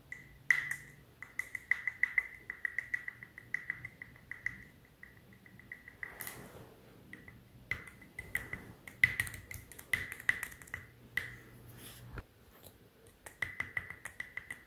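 Plastic Sharpie marker and its cap tapped and clicked together in quick runs of sharp, slightly ringing clicks, several a second, with short pauses between the runs.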